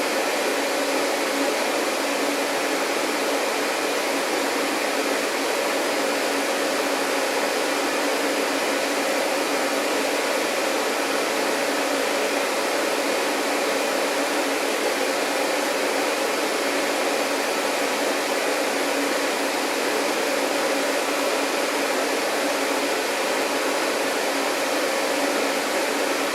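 Vacuum cleaner running steadily: an even rush of air with a faint steady hum under it.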